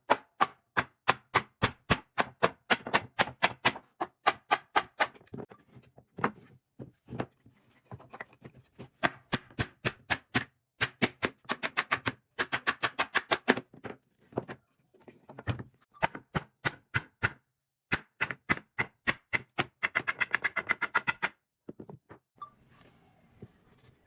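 A rapid, even series of sharp knocks on wood, about five a second, in runs with short pauses: tool strikes on wood. The knocks stop about two seconds before the end, leaving only faint noise.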